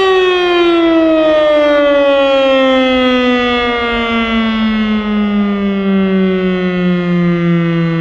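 Federal Signal STL-10 electromechanical warning siren winding down after being switched off, its tone gliding steadily lower in pitch.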